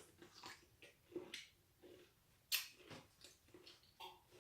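Close chewing of a sour pickle with whipped cream: a run of short, irregular crunches and wet mouth smacks, the loudest about two and a half seconds in.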